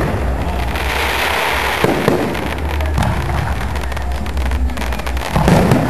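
Aerial fireworks shells bursting overhead: four booms about one to two seconds apart, the last near the end the heaviest, with crackling between them.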